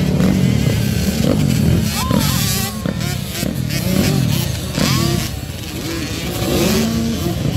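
Dirt bike engines revving as the bikes accelerate over jumps, their pitch rising and falling several times.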